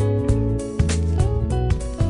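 Background music with a steady beat, bass and sustained instrument notes.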